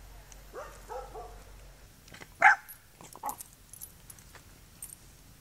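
Pit bull-type dog giving a few short yelps, then one loud bark about halfway through and a shorter bark just after.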